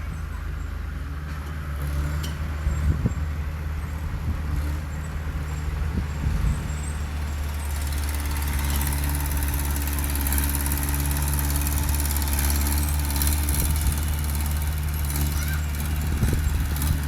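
Heavy diesel engine of earthmoving machinery running steadily. About eight seconds in it works harder, with a fuller, slightly louder note and more noise on top.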